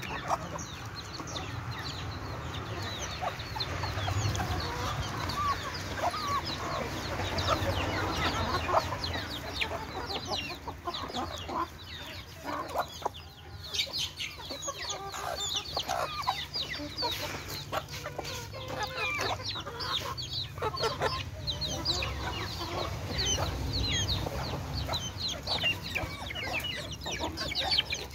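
A flock of chickens clucking continuously while feeding, many short calls overlapping one another.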